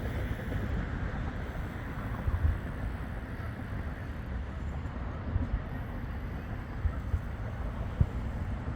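Steady low rumble of wind on a phone microphone, with a few short dull thumps.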